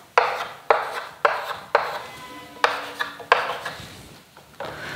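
Chalk striking and scraping on a chalkboard in quick short strokes, about two a second, as arrowheads are drawn onto the ends of lines.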